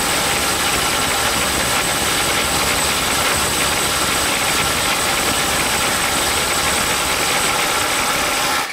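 Ridgid R862311 brushless impact driver hammering steadily at full power as it tries to back off a nut torqued to 500 foot-pounds, then stopping just before the end.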